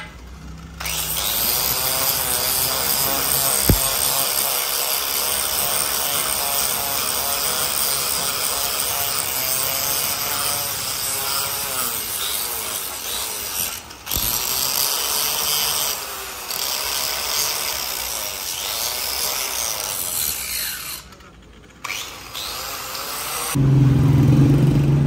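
Angle grinder with a sanding disc grinding the cast iron face of an engine block, running steadily with a high whine and briefly easing off twice before it stops. A louder low hum starts near the end.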